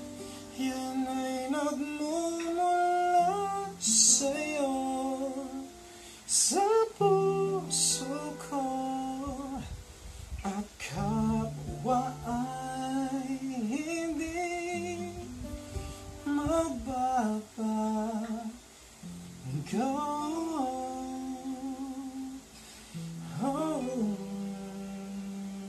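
A man singing, accompanying himself on acoustic guitar; the voice glides up into held notes with vibrato over the guitar.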